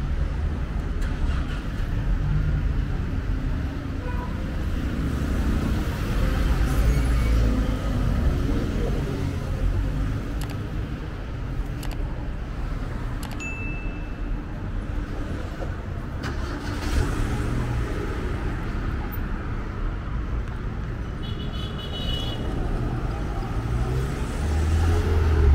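City street traffic: cars driving past close by, engine and tyre noise swelling and fading as vehicles pass, with a couple of brief high-pitched beeps.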